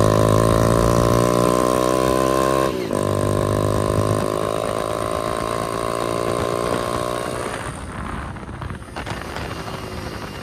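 Hero Splendor motorcycle's small single-cylinder four-stroke engine running under throttle. It dips briefly about three seconds in and picks up again, then fades away after about seven seconds.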